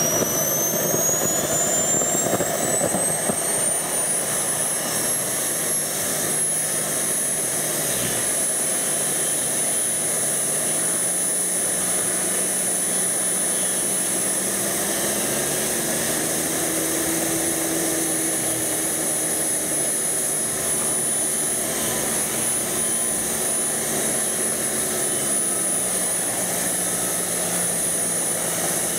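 Radio-controlled scale helicopter running up on the ground. A high whine climbs in pitch over the first five seconds or so, then holds steady over a lower hum that rises a little in pitch partway through.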